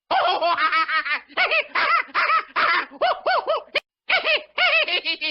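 Cartoon-style comic sound effect: a rapid string of short high-pitched chirps, like a sped-up giggle, in quick bursts with brief gaps, and one sharp click a little under four seconds in.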